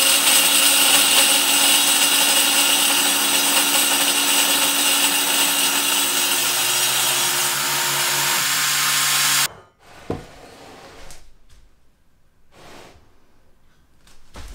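Table saw blade cutting into a spinning wooden blank as a drill turns it against the blade, a loud steady power-tool noise with a steady hum under it as the blank is cut round. It cuts off abruptly about two-thirds of the way through, followed by a single click and a few faint handling sounds.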